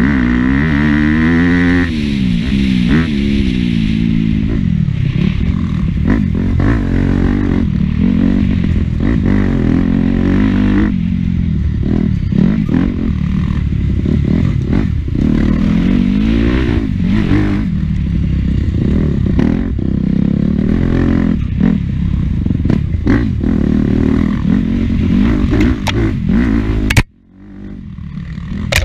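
Dirt bike engine revving up and down as it is ridden hard, its pitch rising and falling with throttle and gear changes, heard up close from the rider's helmet. Near the end the sound drops away suddenly for a moment, then comes back.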